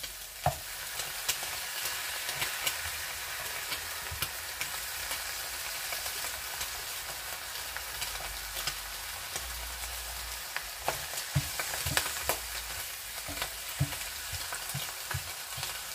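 An egg frying in a pan, with a steady sizzle and fine crackling. There are a few light knocks and clicks of a spatula as it is flipped and the yolk is broken.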